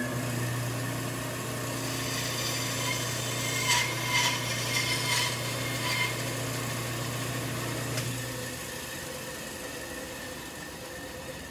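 Benchtop band saw running with a steady low motor hum while its blade cuts a wooden board, with a few brief cutting sounds between about four and six seconds in. The hum dies away about eight seconds in as the saw winds down.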